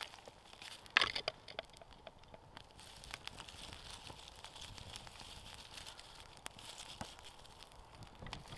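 Dry twigs crunching as a bundle is pushed onto a small campfire about a second in, then the fire crackling and hissing as the twigs catch, with a few sharp snaps.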